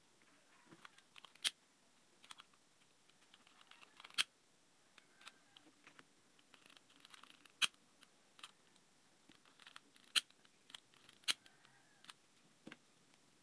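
Faint handling of a plastic wiring connector plug: scattered small clicks and ticks, with about five sharper clicks spread through.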